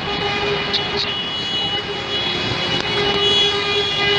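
A horn sounding one steady tone that breaks off about a second in and comes back, over a constant noisy rumble.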